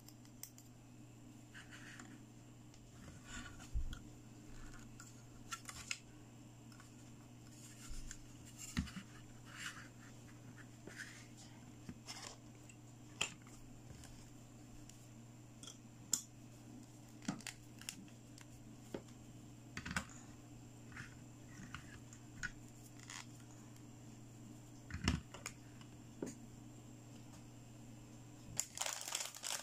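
Small hard plastic toy pieces clicking and tapping as they are handled and snapped together, the parts of a pink toy dentist chair set with its lamp arm and stool, over a steady low hum. A brief rustle near the end.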